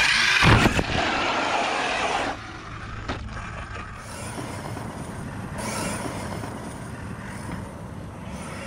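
Arrma Mojave 1/7-scale electric RC truck's motor and drivetrain whining loudly as it jumps, with a thump about half a second in. After about two seconds the sound drops to a faint, steady running noise as the truck drives far off.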